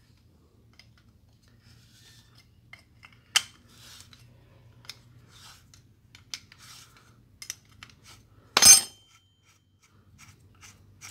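Metal clicks, clinks and short scrapes as a flat steel plate and loose parts are worked against the brass cylinder head of a piston-pump car-wash sprayer being taken apart. Late on there is one loud ringing metal clank.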